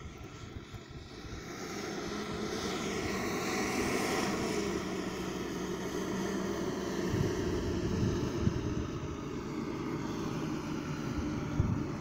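JCB wheel loader's diesel engine running as the machine drives across a grass silage clamp. It grows louder over the first few seconds as the loader comes closer, then holds steady.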